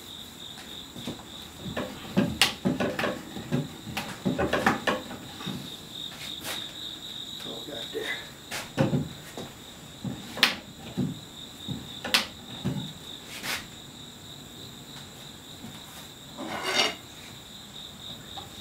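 Irregular wooden clicks and knocks of dry, unglued chair spindles being twisted and worked by hand into their tight holes in the seat, to line up their flats. A steady high insect chirring runs underneath.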